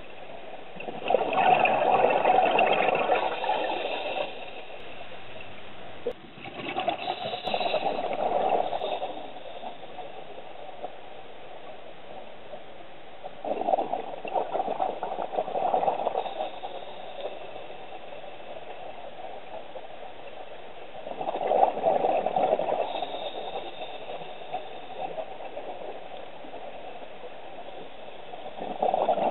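Underwater, a scuba diver's regulator letting out bursts of exhaled bubbles, each a gurgling rush of two to three seconds, coming about every seven to eight seconds in time with the diver's breathing, with a steady low hiss between breaths.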